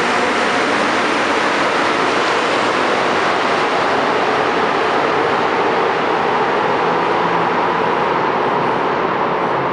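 Montreal Metro MR-73 rubber-tyred train pulling out of the station and running off into the tunnel: a steady, loud rolling rumble and hiss from the wheels and motors.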